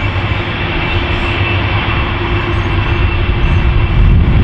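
The Rolls-Royce RB211 turbofans of a Qantas Boeing 747-400 running on the runway: a loud, steady low rumble with a steady high whine over it, getting a little louder near the end.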